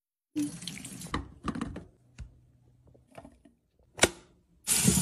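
Kitchen handling sounds: fruit and clear plastic containers clicking and knocking as fruit is set down and tipped in, with one sharp click about four seconds in. Then a loud rush of running water starts near the end.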